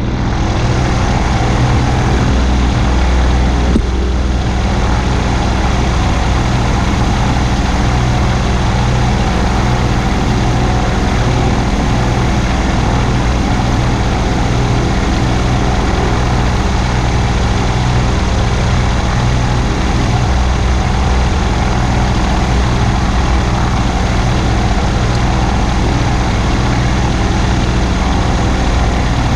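Delta-wing trike's engine and propeller idling steadily, a constant low hum with no change in pitch.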